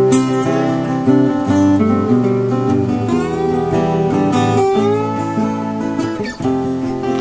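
Background music played on acoustic guitar, with a few notes sliding in pitch about three to five seconds in.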